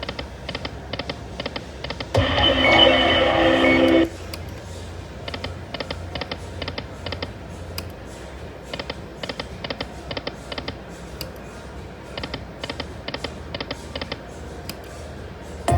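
Lightning Link Moon Race slot machine playing: a loud two-second electronic jingle about two seconds in, then steady reel-spin sounds of rapid clicking ticks in short clusters.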